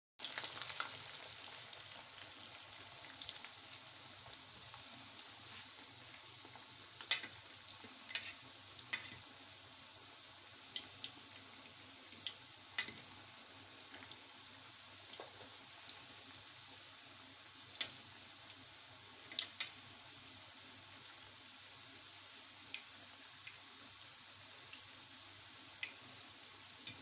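Spiral of churro dough deep-frying in hot oil, a steady bubbling sizzle with a sharp tick now and then.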